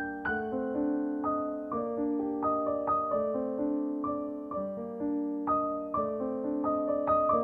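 Background piano music: a gentle, unhurried melody of struck notes, each ringing and fading, over sustained lower notes.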